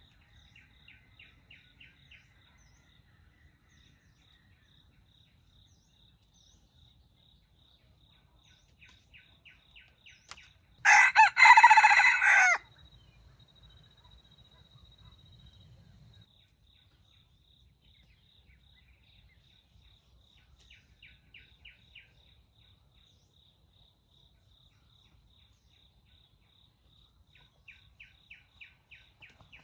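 A junglefowl rooster crows once, a single loud crow of about two seconds partway through. Around it, faint runs of rapid high chirps come and go over a steady, faint insect-like pulsing.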